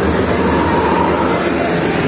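A large bus driving past close by: a steady engine rumble and tyre and road noise.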